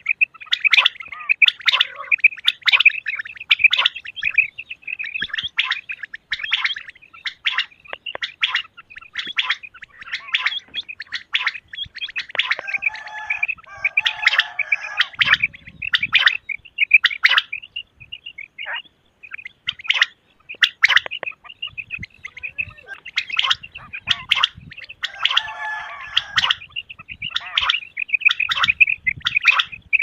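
Male common quail calling over and over in fast runs of sharp, high chirping notes. Twice, about halfway and near the end, a lower, rougher gurgling note joins in.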